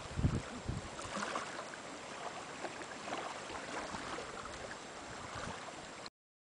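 Small lake waves lapping on a pebble shore, a steady fine wash, with wind buffeting the microphone during the first second. The sound cuts off abruptly near the end.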